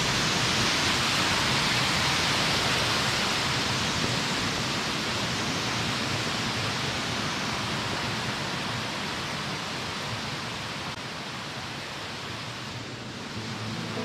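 Mountain stream cascading over rock slabs: a steady rush of white water that slowly grows fainter.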